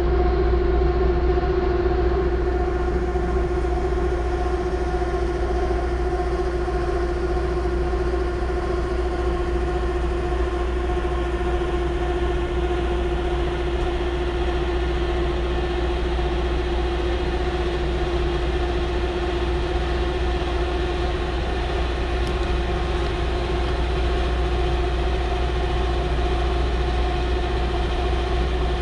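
A steady machinery drone: a constant mid-pitched hum with an overtone above it, over a heavy low rumble, never changing in pitch or level.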